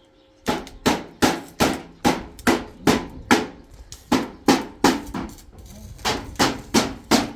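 Hammer striking metal in a fast, even series of blows, about two to three a second, each with a short ring.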